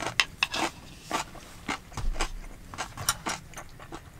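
A person eating close to the microphone: chewing and wet mouth clicks, irregular, a few a second, mixed with light clicks of wooden spoon and chopsticks.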